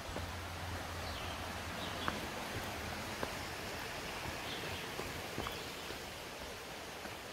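Steady hiss of distant highway truck traffic, with a low rumble that fades about halfway through. Faint bird chirps and a few light footsteps on the trail are heard over it.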